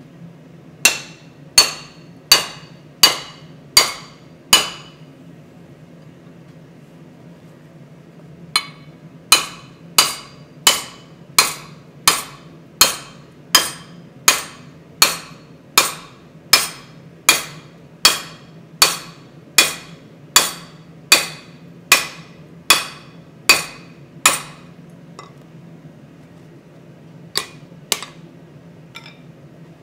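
Hand hammer striking a hot punch held upright in a glowing EN9 steel billet on an anvil, each blow a sharp, ringing metallic strike. Six blows, a pause of about four seconds, then a steady run of over twenty blows at well over one a second, and two lighter blows near the end, over a steady low hum.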